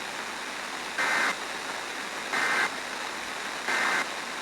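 Emergency Alert System end-of-message data signal: three short, warbling digital bursts about a second and a half apart, marking the end of the severe thunderstorm warning, over a steady hiss.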